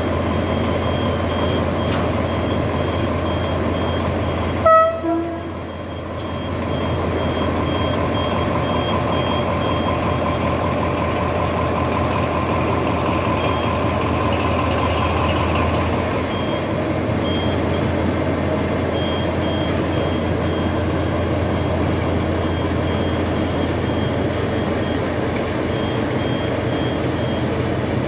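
TCDD DE 24000-class diesel-electric locomotive running with a steady low drone. A short, loud horn toot sounds about five seconds in. A high electronic beep repeats on and off.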